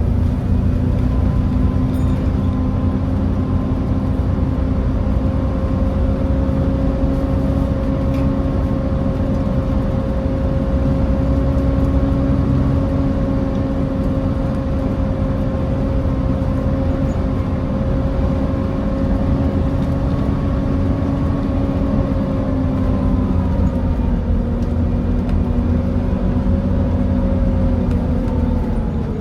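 Volvo B7TL bus heard on board while under way: its Volvo D7C engine runs with a deep rumble under a steady whine from the cooling fans. The whine holds one pitch for most of the time, then falls in pitch near the end as the bus slows.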